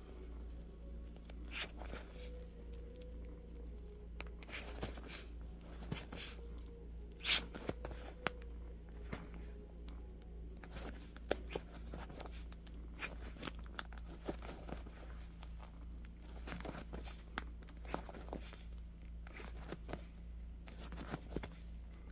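Leather-gloved hands gripping and pulling a rubber Traxxas TRX-4 Bronco crawler tire to break it loose from the glue on its plastic rim: short scrapes and rasps of rubber and leather at irregular intervals. A steady low hum runs underneath.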